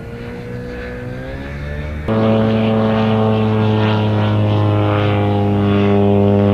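Kolb UltraStar ultralight's Cuyuna ULII-02 two-stroke twin engine and pusher propeller droning overhead. Its pitch climbs over the first two seconds, then about two seconds in it jumps abruptly to a louder, steady drone.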